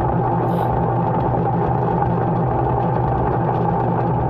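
Micromatic twin-tub washing machine running on the wash cycle, its motor and gearbox making a loud, steady grinding whine, very noisy, like a grinder. The noise comes from a failing wash gearbox that needs replacing.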